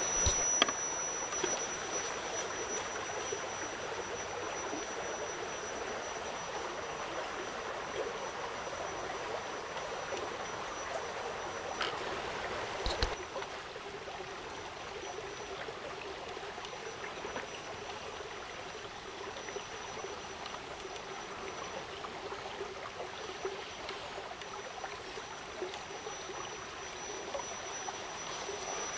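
Small forest stream running steadily, with a thin high whine coming and going and a couple of brief clicks.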